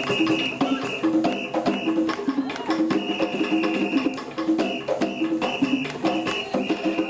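Live African-style drumming: hand drums and shakers playing a fast, steady rhythm, with a high held note sounding in short spells over it.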